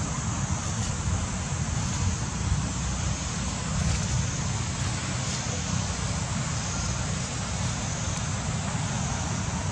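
Steady rushing noise with a heavy low rumble, like wind buffeting the microphone, with no distinct events.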